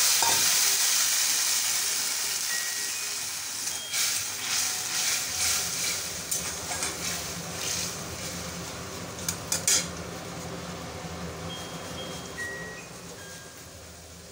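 Boiled jute leaves and their liquid sizzling in hot mustard oil in a wok: a loud frying hiss that slowly dies down. A metal spatula scrapes and clicks against the pan as the leaves are stirred.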